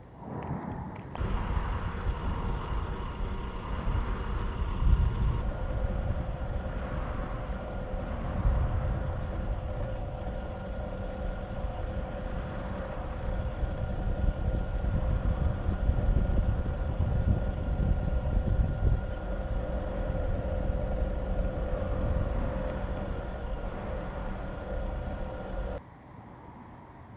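Traxxas TRX-4 RC crawler's electric motor and gearbox whining steadily, over a loud, uneven rumble of the chassis and tyres on rough ground. It starts about a second in and cuts off suddenly near the end.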